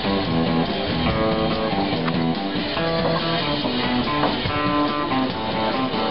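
Background music: guitar-led rock instrumental with a steady beat.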